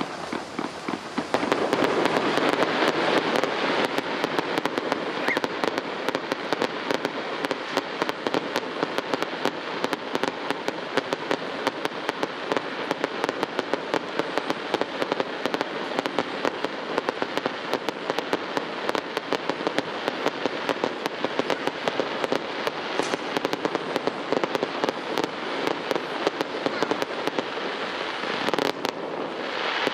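Fireworks going off: a dense, continuous crackle of many rapid bangs and pops, starting loudly about a second and a half in.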